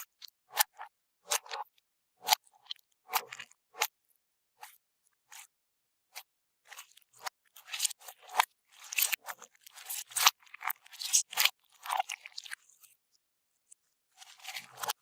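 Crunchy bead-filled slime being worked and squeezed, giving short crackling crunches that come sparsely at first, then thick and fast for several seconds in the middle, with a pause before they pick up again near the end.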